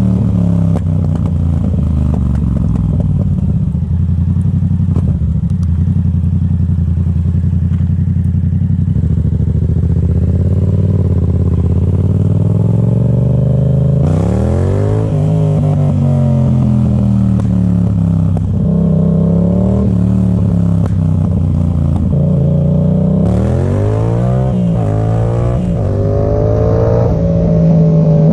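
Yamaha MT-07's 689 cc parallel-twin engine, heard through an Arrow exhaust with the dB killer removed, running steadily at low revs. Around the middle and again near the end it revs up and drops back down.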